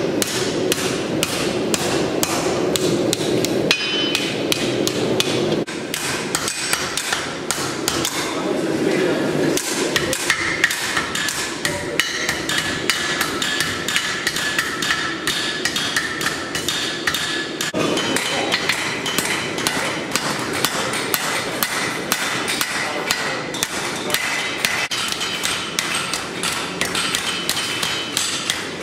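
Blacksmith's hand hammer striking red-hot steel on an anvil, forging javelin heads: a steady run of sharp, ringing blows, a few a second.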